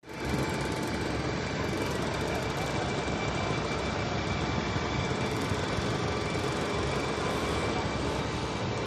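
Rescue helicopter hovering, a steady rotor and engine noise with a thin high whine held over it.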